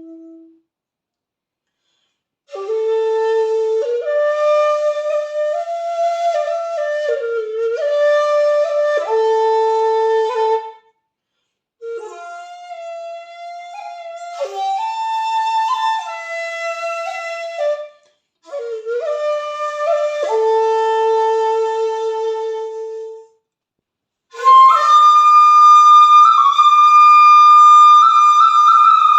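Jinashi 1.6 shakuhachi of black madake bamboo played solo: held notes joined by pitch slides, in four phrases separated by short pauses. The last phrase, near the end, is louder and higher, in the flute's upper register.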